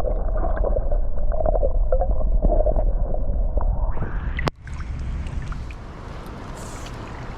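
Muffled gurgling and low rumbling of water as heard with the microphone submerged, until a sharp click about four and a half seconds in. After that comes a steady, open outdoor hiss, quieter than the gurgling.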